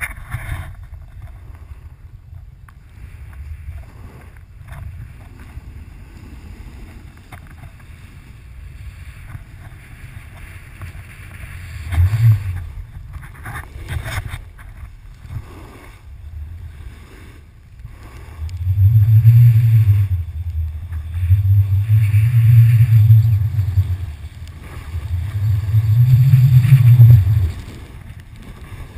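Wind buffeting the microphone of a pole-mounted camera as a snowboard slides down through fresh powder, with a faint hiss of the board on the snow. The low wind rumble swells in three loud surges in the second half as the rider picks up speed.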